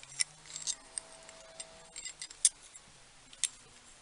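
A few light clicks and taps of a small metal hand tool being picked up and handled.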